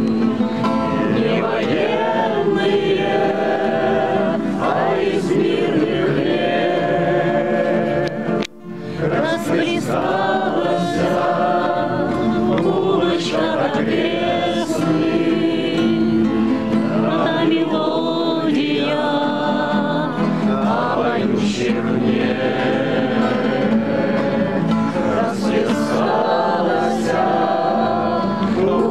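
A crowd of mixed voices singing a Russian bard song together to strummed acoustic guitars, with a brief dropout about eight and a half seconds in.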